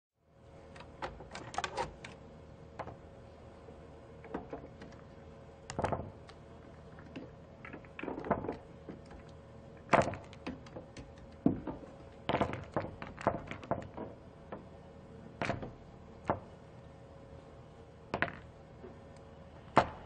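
Pool balls clacking against one another and rolling on a pool table: scattered sharp knocks, some single and some in quick clusters, the loudest about ten seconds in and just before the end, over a faint steady hum.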